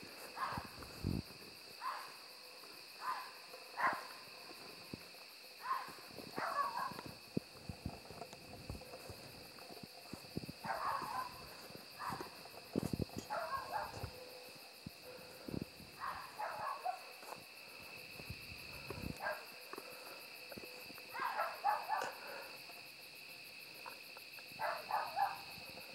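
A vixen (female fox) in heat calling again and again: short, harsh barking calls in little clusters every few seconds, the wild noise of a fox in the breeding season. Crickets chirp steadily underneath.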